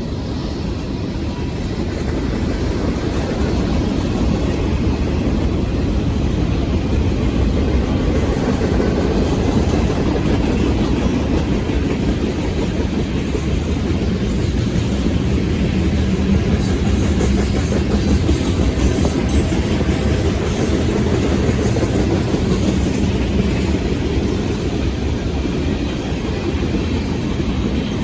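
Manifest freight train rolling past close by: a steady heavy rumble of the cars' wheels on the rails, with clickety-clack over the joints. A few seconds of sharper metallic clatter come about halfway through.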